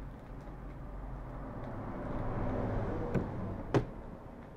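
Scissors snipping through the foil of a small snack pack: two sharp snips about three seconds in, the second the louder, over a low rumble that swells and then fades.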